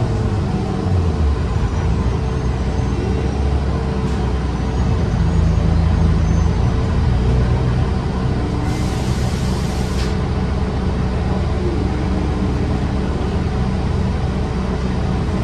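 2023 Gillig transit bus running, a steady low drone with its air-conditioning working hard. A short hiss comes about nine seconds in and lasts about a second.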